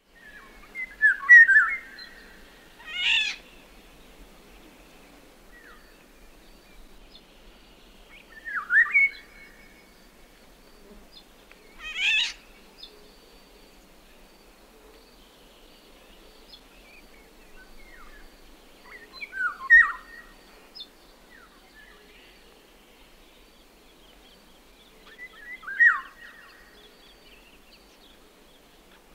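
Oriole singing: four short fluty whistled phrases several seconds apart, each with notes that fall in pitch, and two short harsh notes in between, about three and twelve seconds in.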